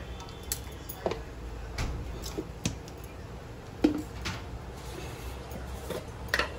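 A spoon tapping and clinking against spice containers and a bowl while spices are measured out: a handful of short, scattered knocks, the loudest about four seconds in.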